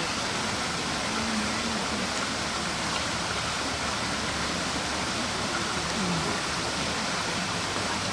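Steady rushing noise, like running water or air, with faint distant voices now and then.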